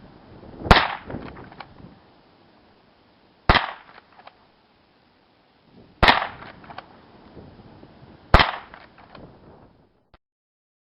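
Newer-model Marlin 39A lever-action rifle firing four .22 rimfire shots, about two and a half seconds apart, each a sharp crack with a short tail, with faint clicks between shots.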